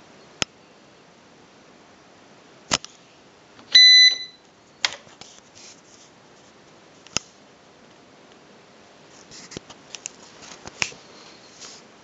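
Silver Reed EX133MD electronic typewriter: a few sharp key clicks and one short, high electronic beep about four seconds in, the loudest sound, then a quick run of clicks near the end.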